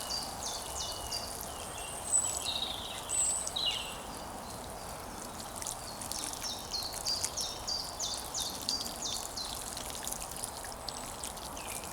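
Water poured onto the still-hot embers of a campfire, a steady watery trickle and rush. A bird sings over it in runs of quick, falling chirps.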